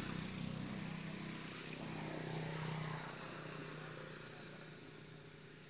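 A motor engine drones steadily, then fades away over the last couple of seconds as it passes.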